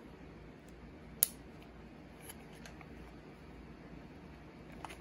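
Crosman Vigilante CO2 revolver being handled: one sharp click about a second in, then a few faint clicks and taps.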